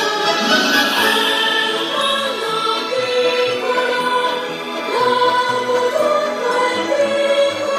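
Choral music with held sung notes, played through a homemade 3D-printed Bluetooth speaker built as a copy of a JBL Flip, with little deep bass.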